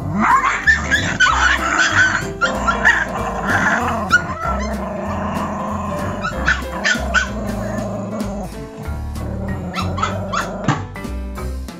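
Pomeranian puppies barking and yipping in short bursts as they play-fight, busiest in the first few seconds and again about halfway and near the end, over background music with a steady bass line.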